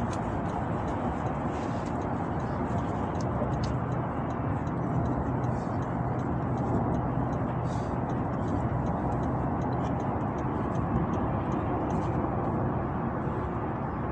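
Steady road and engine noise heard inside the cabin of a moving car, with faint light ticks scattered through it.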